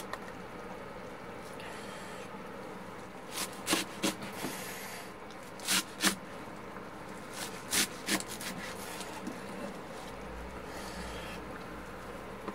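Kitchen knife cutting through a bunch of garlic chives on a wooden cutting board: scattered sharp knocks of the blade on the board, bunched in the middle seconds, over a steady low hum.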